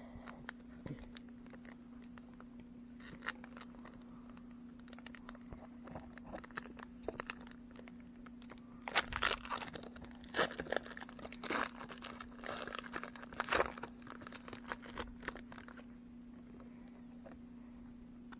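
Wrapper of a 2019 Donruss baseball card pack being torn open and crinkled by hand, a run of crackles that is loudest about halfway through. A steady low hum sits underneath.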